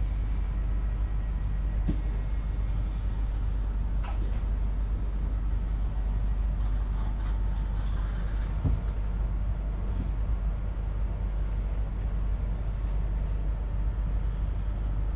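Steady low hum and rumble inside a stationary passenger train carriage, with a few faint clicks and knocks.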